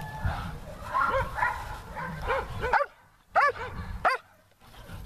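Dog yipping and whining: a run of short, high-pitched cries in quick succession, broken by two brief gaps.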